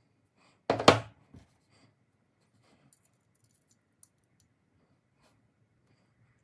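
A clatter of steel hex keys in their plastic holder being set down, a short cluster of sharp knocks about a second in, then a few faint metallic ticks as a small hex key is worked against the pistol slide's rear sight plate screws.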